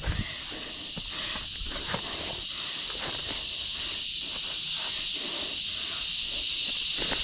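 A steady, high-pitched insect buzz, typical of cicadas in the forest, growing slightly louder, with faint scuffs of shoes on bare rock.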